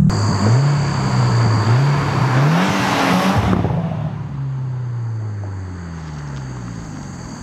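Subaru WRX turbocharged 2.0-litre flat-four through an Invidia R400 quad-tip cat-back exhaust, pulling away as the car drives off. The engine note climbs, climbs again and is loudest about three seconds in, then sinks and fades as the car recedes.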